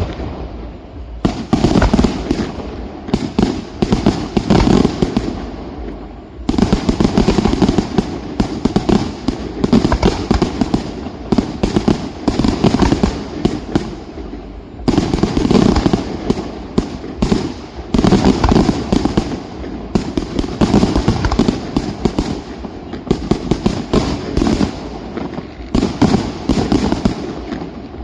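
Fireworks display: rapid volleys of loud bangs and crackling shell bursts in dense clusters, easing briefly about six seconds in and again about fourteen seconds in.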